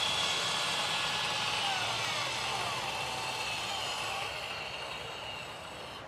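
GTO 2002XL dual gate opener's two linear actuators, driven by freshly fitted RS550 motors through their grease-packed gearboxes, whining steadily as they swing the gates open, the sound fading gradually toward the end. The opener is working again after the motor replacement.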